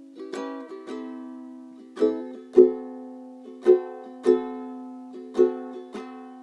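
Ukulele strummed in chords. The playing is light at first, and from about two seconds in it settles into a steady, louder strumming pattern of paired strums.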